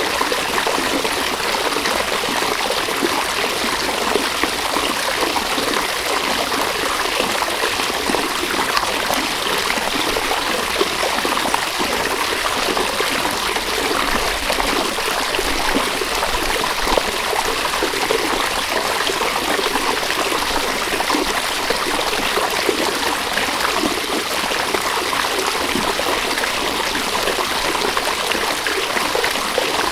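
River water running and babbling over stones, a steady, even rush with fine trickling detail.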